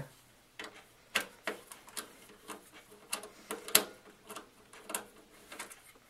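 Screwdriver backing screws out of a steel computer case: a run of small, irregular clicks and ticks, a couple a second.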